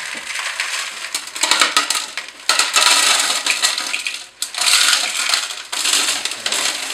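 Clean gravel poured from a bowl into the plastic upper reservoir of a Brita water dispenser: a dense rattling clatter of small stones, coming in several surges with a brief let-up about four seconds in.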